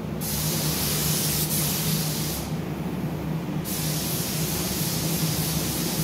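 Compressed-air gravity-feed spray gun hissing as it sprays paint in two passes: one of about two seconds, then a break of about a second, then a longer second pass. A steady low hum runs underneath.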